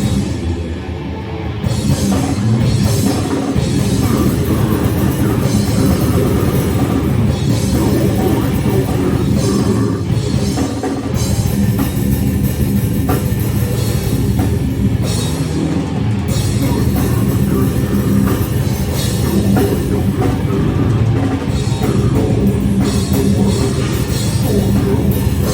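Loud heavy rock music, a band with a drum kit and guitar playing without a break.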